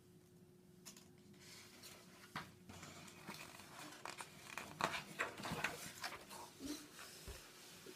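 Sheets of paper rustling and crackling as pages are handled and turned, in a run of short crackles that are loudest in the middle.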